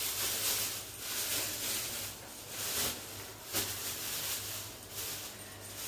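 Thin plastic bag rustling and crinkling in repeated waves as it is handled and filled with soaked beans, with one brief sharp crackle about three and a half seconds in.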